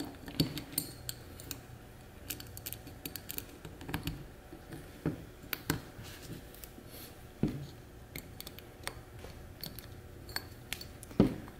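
Small flathead screwdriver and a steel double spiral lock ring scraping and clicking against an LS piston as the ring is walked around the wrist-pin groove to seat it. The clicks are short and irregular, with a handful of sharper ones spread through.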